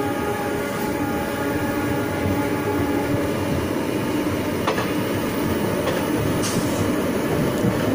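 Passenger coach of the Delhi–Faizabad Express running along the track, heard from an open window: a steady rumble of wheels on rails with rushing air. A few faint steady tones fade out in the first few seconds, and a few short sharp clicks come from the wheels later on.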